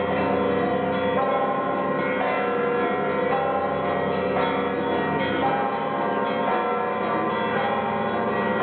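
Orthodox monastery bells ringing together: several bells of different pitches struck over and over, their tones overlapping in one continuous peal.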